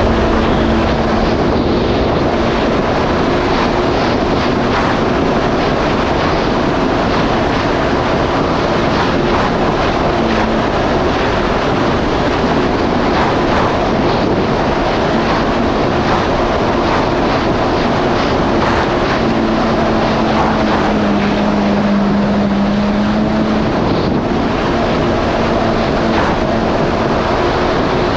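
Yamaha GP1800R SVHO jet ski's supercharged four-cylinder engine running steadily under way, mixed with a dense rush of wind and water over the microphone.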